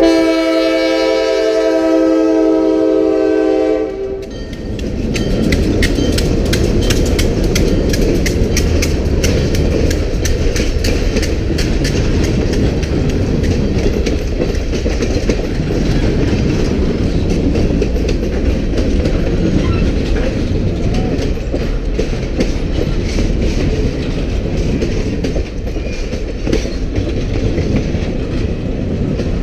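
Diesel locomotive air horn sounding a long blast that cuts off about four seconds in. The passenger train then rolls past the crossing with a low rumble, its wheels clicking over the rail joints.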